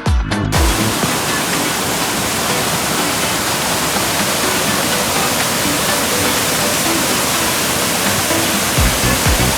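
Waterfall: falling water making a steady, loud rushing noise. Dance music with a heavy beat cuts off just after the start and comes back near the end.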